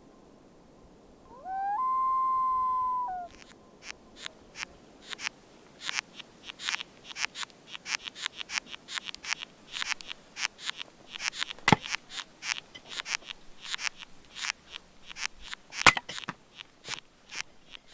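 A loon's wail, about two seconds long: the call rises, holds on one pitch and falls away. Then a dense run of small irregular clicks and crackles, several a second, from ants chewing wood, with two louder snaps in the second half.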